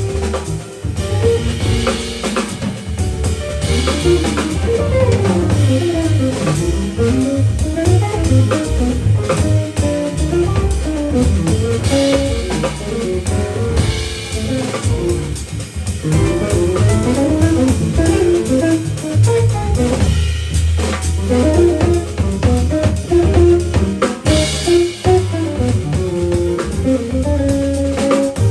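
Live jazz combo playing: a semi-hollow electric guitar takes a solo of quick single-note runs over drum kit with cymbals and a walking bass line.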